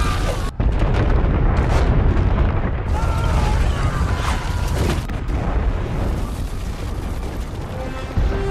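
Film sound effects of an avalanche: a dense, deep rumble of crashing snow and ice that runs on without break, cut by a brief dropout about half a second in.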